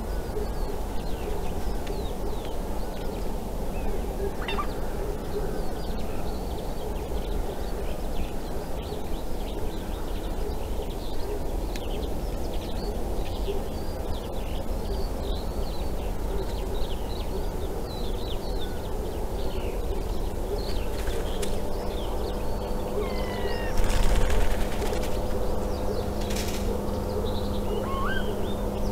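Wild birds calling: many short, high chirps and whistles over a steady low hum, with one louder, harsh burst late on.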